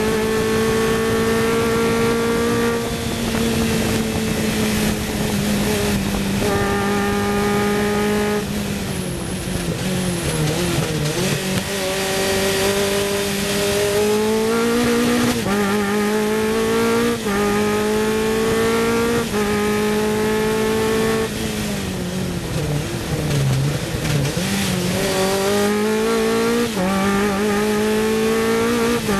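Sports 2000 racing car's four-cylinder engine heard on board. It is held at high revs at first, then drops in steps through several downshifts under braking about a third of the way in. It climbs again with a run of quick upshifts, each gear rising in pitch and falling at the change. Near the end it brakes and downshifts once more, then pulls up through the gears again.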